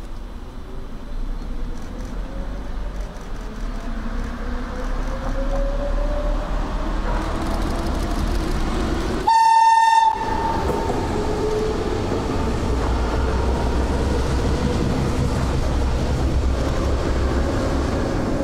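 Berlin S-Bahn class 485 electric train pulling away and passing close by, its motor whine rising in pitch as it speeds up. One short horn blast about halfway through is the loudest sound, followed by the steady noise of the cars rolling past.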